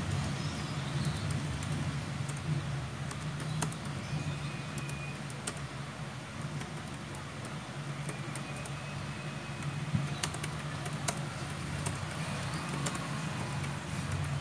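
Fast typing on a low-profile computer keyboard, its keys clicking in quick, irregular patters, over a steady low hum.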